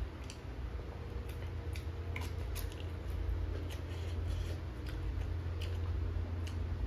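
Close-miked eating sounds: chewing and fingers working rice and crisp food on a plate, heard as irregular sharp clicks and crackles over a steady low hum.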